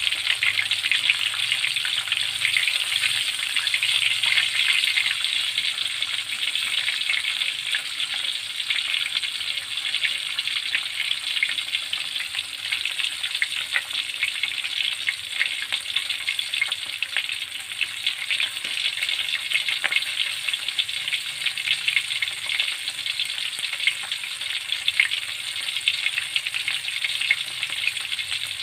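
Pieces of milkfish frying in hot oil in a steel wok: a steady sizzle thick with fine crackles, a little stronger in the first few seconds.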